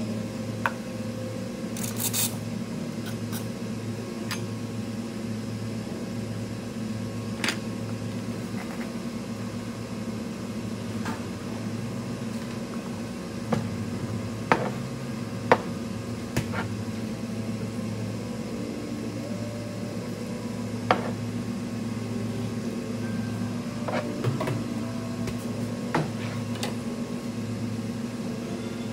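A steady low hum of running equipment, with about a dozen scattered sharp clicks and knocks, the loudest a little past the middle, and a brief high rattle about two seconds in.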